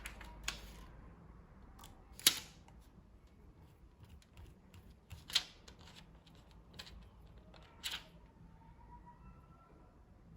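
Irregular sharp clicks and taps from handling the laptop's hard plastic case and small parts, about five louder ones spread over ten seconds.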